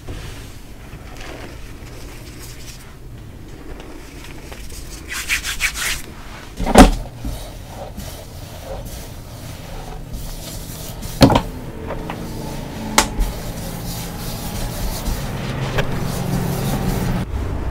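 Hands rubbing and pressing loose powdered gym chalk, a steady dry scraping, broken by a few sharp pats or knocks: the loudest about seven seconds in, then two more a few seconds later.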